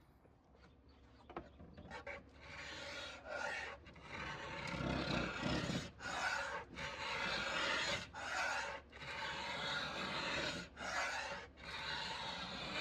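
Hand-worked rasping and rubbing strokes on a hard surface, in runs broken by short pauses. Faint at first, it grows louder about two seconds in.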